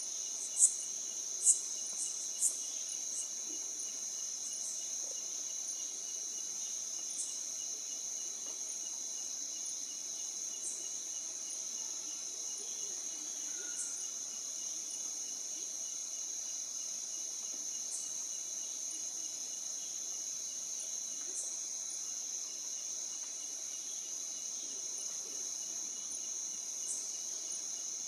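Steady, unbroken high-pitched chorus of insects, with short sharp chirps or clicks over it, three louder ones in the first few seconds and fainter ones scattered after.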